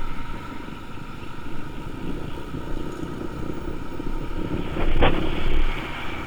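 Motorcycle on the move, its engine and road noise a steady low rumble mixed with wind buffeting the helmet microphone. A short, sharp sound stands out about five seconds in.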